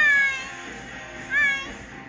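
A small animal crying twice, high-pitched, each cry rising then falling in pitch: a longer one at the start and a shorter one about one and a half seconds in, over background music.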